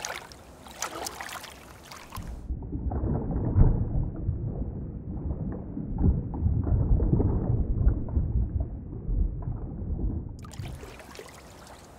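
Water splashing and sloshing around a kayak. A couple of seconds in, the sound turns muffled for about eight seconds, then clear splashing returns near the end.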